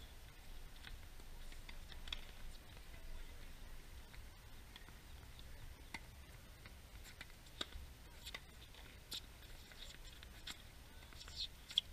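Faint, scattered sharp pops of a tennis ball being struck by rackets and bouncing on a hard court, the loudest one just before the end.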